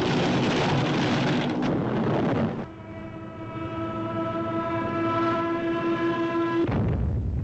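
Cartoon soundtrack effects: a dense roar of noise for about two and a half seconds, then a long, steady, horn-like blare held for about four seconds, broken off by a short burst of noise near the end.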